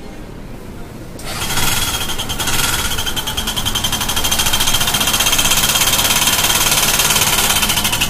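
Bajaj Discover 125 ST's single-cylinder engine starting about a second in, then running with a loud, fast, steady metallic clatter from inside the engine. The mechanic puts the noise down to oil starvation: the oil pump has jammed and stripped its gear teeth, so oil no longer reaches the top end, some parts are cut, and the engine has begun to seize.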